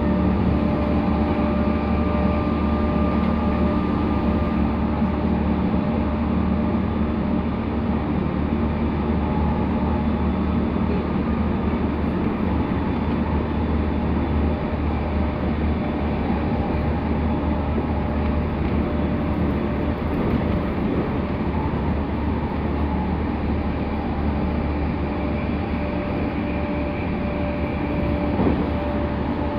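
E217-series commuter train heard from inside the car while it runs at steady speed: continuous wheel-on-rail rumble with a steady hum of fixed tones. There is a brief knock near the end.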